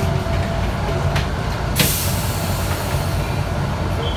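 Cabin sound of a Mercedes-Benz O405G articulated bus: the diesel engine's steady low drone, with one short sharp hiss of released compressed air from the bus's air system about two seconds in.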